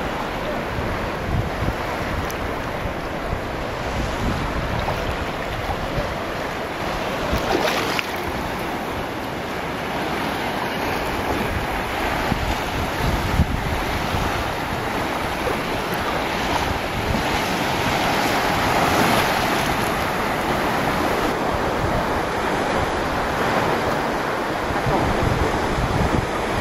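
Sea surf washing onto a sandy beach, a steady rushing noise, with wind buffeting the microphone in low rumbling gusts.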